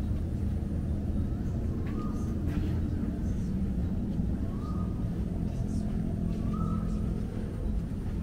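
Steady low rumble of distant engines and traffic, with a bird giving a short rising call about every two to three seconds.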